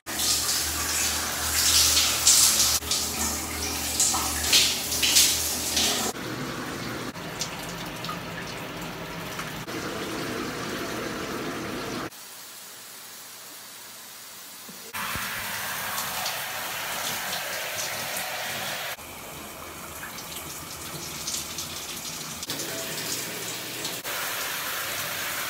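Shower spray running and splashing, heard as a steady hiss of water that jumps in level at several cuts. It is loudest and splashiest in the first six seconds and drops quieter for a few seconds around the middle.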